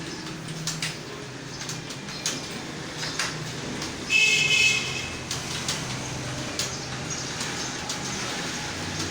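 Computer keyboard keys clicking irregularly as someone types, over a steady low hum. About four seconds in, a brief loud high-pitched squeal lasts under a second.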